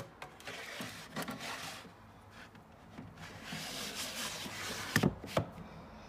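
A LEGO house on its plastic baseplate sliding into a snug gap under a wooden shelf, the plastic rubbing and scraping on the wood in two pushes. Two light knocks come near the end.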